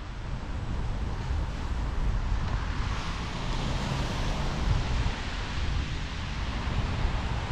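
Steady wind rushing over the microphone of a cyclist on the move, with a constant low rumble beneath it.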